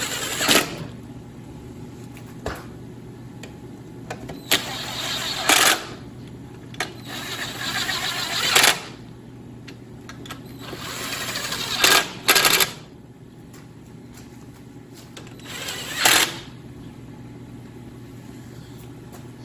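Cordless drill/driver running in the bolts that hold a snowmobile engine's recoil starter housing on, in about five short runs that each build and then stop sharply. There are a few single knocks between the runs.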